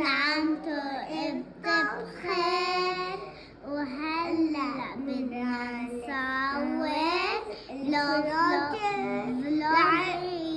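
A young girl singing a melody with long held notes, the voice largely unaccompanied.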